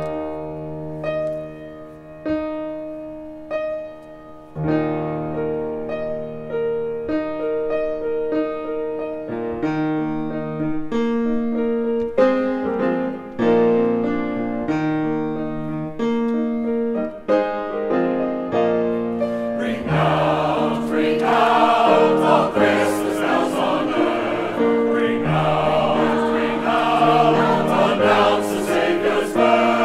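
Grand piano playing a slow introduction alone, then a choir comes in singing over the piano about two-thirds of the way through.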